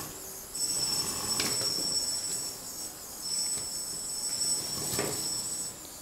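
High-pitched whine of an RC tracked vehicle's brushed electric drive motors, one driving each plastic track, in two stretches of a few seconds as it drives. Two knocks, about a second and a half in and about five seconds in, as the tracks climb over small wooden pallets.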